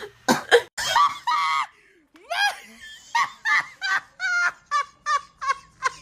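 A person laughing hard in a long string of short "ha" bursts, about three a second, each rising and falling in pitch. Before a short pause about two seconds in, there are a few loud, high outbursts.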